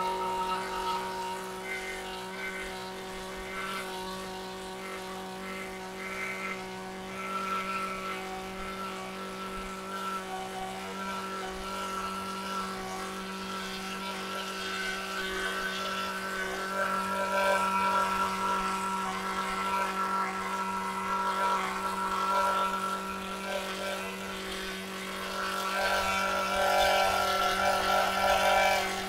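Small 25.4 cc two-stroke chainsaw engine running steadily at high revs during its break-in, a constant high-pitched drone.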